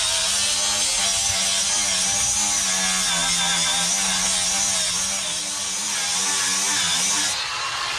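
Cordless grinder running against a steel trailer frame, grinding down old welds and rust: a steady whine whose pitch wavers as the tool bites into the metal. The grinding hiss drops away near the end.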